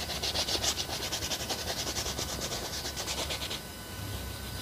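A cloth rubbing oil paint into a large canvas in rapid, even back-and-forth strokes. The strokes stop about three and a half seconds in.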